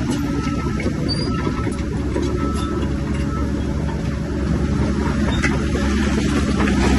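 Bulldozer's diesel engine running steadily under load, with faint short squeaks and clicks, a little louder from about four seconds in.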